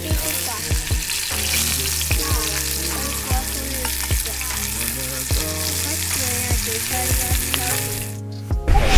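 Kuroge Wagyu beef sizzling and spitting in a cast-iron skillet over a wood fire, with background music underneath. The sizzle drops out about eight seconds in.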